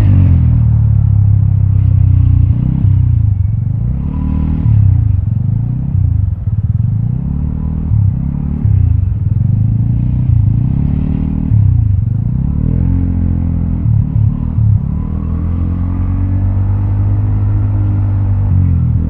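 Vespa scooter's single-cylinder engine breathing through an aftermarket Prospeed black CNC exhaust, its pitch rising and falling again and again as the throttle is opened and closed.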